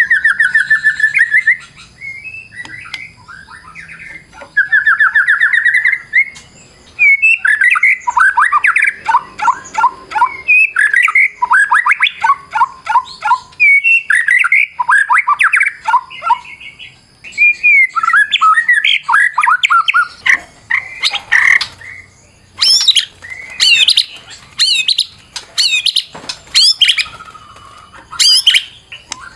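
White-rumped shama (murai batu) singing a long, varied fighting song. It starts with rapid trills, runs into dense chattering phrases, and ends with loud, steep sweeping whistles in the last several seconds.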